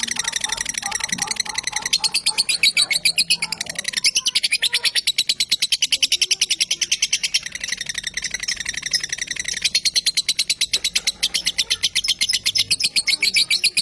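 Lovebird singing a long, very fast rattling chatter of high notes, the 'ngekek' song prized by Indonesian bird keepers. It breaks off briefly twice.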